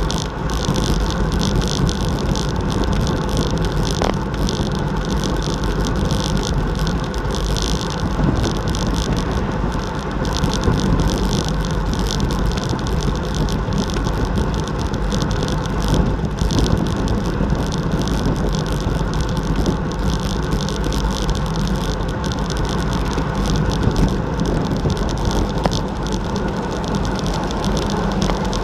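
Steady rush of wind over a bike-mounted action camera's microphone with tyre noise, from a road bicycle ridden at about 40 km/h in a group.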